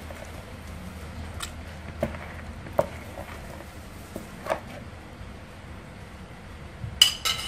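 Metal tongs handling a wet half chicken in a plastic basin of marinade: a few soft taps, then near the end a sharp metallic clink of the tongs with a brief ring.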